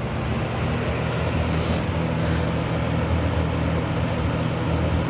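Early-1980s Lakewood P223 20-inch box fan running on high speed: a steady rush of air over a low motor hum.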